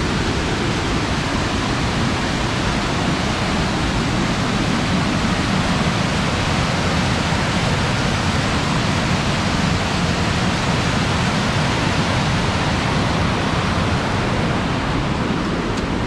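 Waterfall rushing steadily: an unbroken, even wash of falling water.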